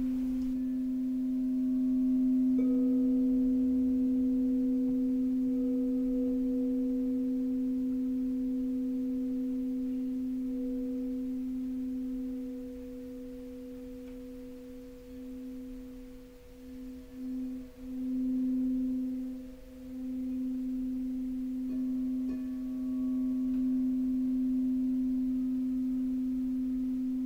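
A sustained ringing pitched tone with several fainter higher overtones, like a sound-healing instrument, held throughout. Higher tones join about two and a half seconds in and again about twenty-two seconds in, and the tone pulses in loudness in the second half.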